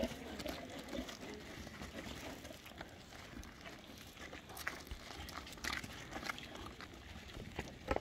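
Faint shuffling and scattered taps of goats and people moving about on dry, stony dirt.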